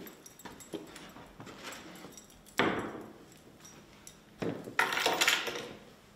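Thuds and knocks of a person coming in through a door and moving about on a wooden stage floor: a sharp thud about two and a half seconds in, then a louder clatter about a second before the end.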